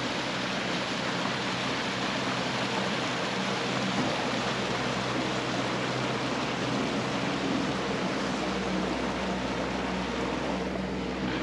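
A small boat's outboard motor running steadily as it passes on the river: an even engine hum over a constant rushing noise.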